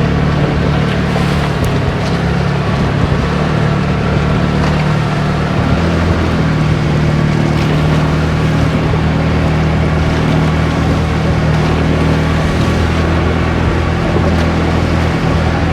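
Engine of a motorized Filipino canoe (bangka) running steadily under way, with a steady rushing hiss over the low engine drone.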